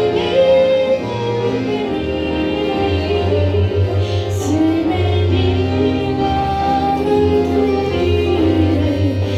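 A woman singing a Christian song of praise into a microphone, in long held notes over an instrumental accompaniment with steady low bass notes.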